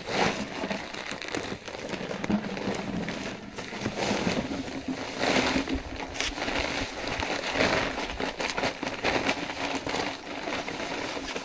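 A sack of deep-fill self-levelling compound rustling and crinkling as it is emptied into a bucket of water, the powder pouring out with it.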